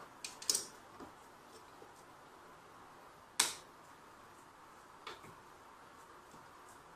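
A few small clicks and taps from handling a garage-door remote's plastic parts and circuit board by hand, with the sharpest click about three and a half seconds in, over a low steady hiss.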